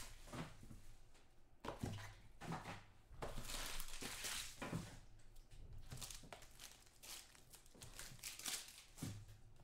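Empty trading-card pack wrappers and packaging crinkling and rustling as they are gathered up to clear them off the table, with a couple of soft knocks.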